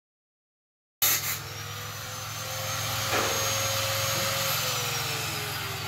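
Silence for about a second, then a steady engine hum whose pitch holds and then falls slowly over the last second or so, with a single knock about two seconds in.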